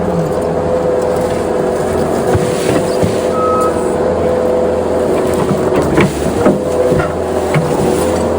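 Skid steer engine running steadily, with scattered clanks and rattles and a brief high beep about three and a half seconds in.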